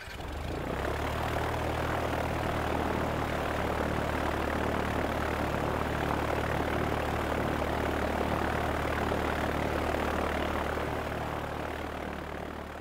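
Propeller airplane engine running steadily at an even pitch, fading in over the first second and fading out near the end.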